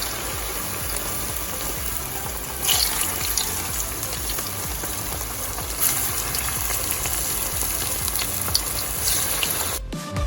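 Hot oil sizzling and crackling steadily as vermicelli-coated kilikoodu balls deep-fry, swelling louder twice, then cutting off sharply near the end.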